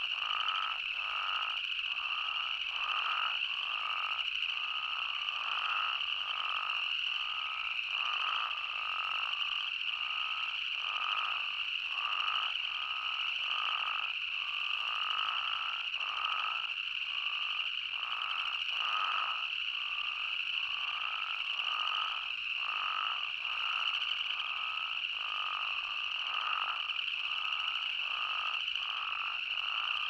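Spadefoot toads calling in a breeding chorus: many short overlapping calls, about one or two a second, over a steady high-pitched drone.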